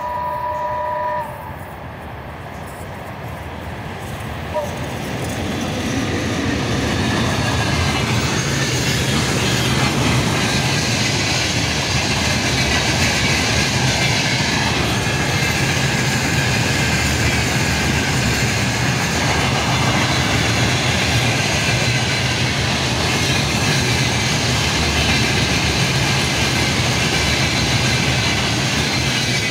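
A VL80K electric freight locomotive gives a short horn blast, about a second long, at the start. The rumble then grows louder as it approaches and passes, and settles into the steady noise of a long string of open freight wagons rolling by.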